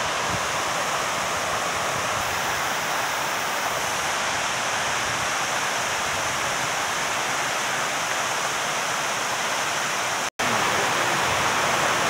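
Waterfall and stream water rushing steadily over rock slabs in a shallow cascade. It drops out for an instant about ten seconds in, then resumes.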